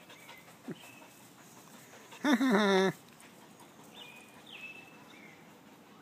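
A single loud, drawn-out vocal cry lasting under a second, about two seconds in, with faint high chirps before and after it.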